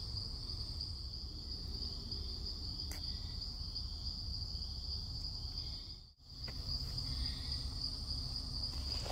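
Steady chorus of crickets or similar insects: one continuous high-pitched trill, unbroken except for a short dropout about six seconds in.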